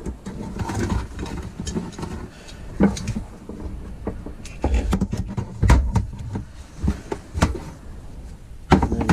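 Knocks and clatter of a motorcycle rear shock absorber and a tie-down ratchet strap being picked up and handled on a workbench, a handful of sharp knocks spread through it, over a low steady rumble.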